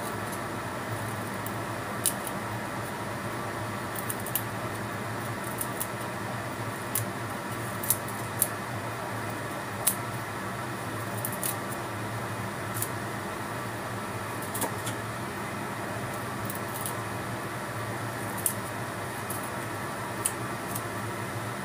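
Small paring knife cutting and shaving raw broccoli stems held in the hand: irregular crisp clicks and snaps every second or two, over a steady background hum.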